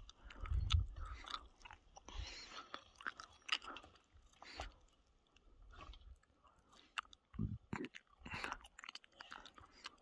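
Footsteps on loose rock scree: irregular crunches and clacks of stones shifting underfoot, with a low rumble about half a second in.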